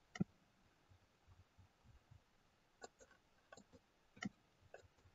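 Faint, sparse clicks of a computer mouse and keyboard in use, about five in all, the loudest shortly after the start and another a little past four seconds in.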